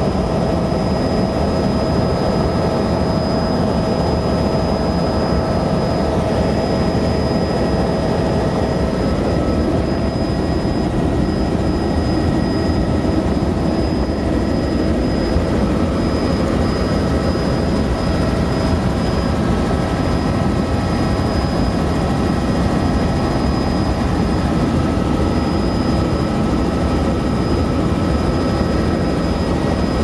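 Helicopter cabin noise in level flight: a steady, dense low rumble of rotor and engine with thin, high turbine whines over it. A mid-pitched tone in the whine fades out about nine seconds in.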